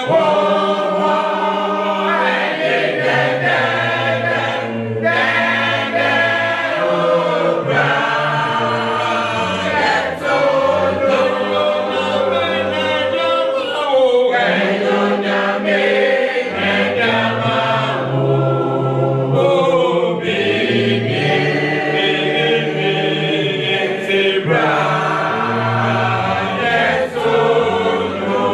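A choir singing a hymn unaccompanied, several voice parts holding long notes in harmony.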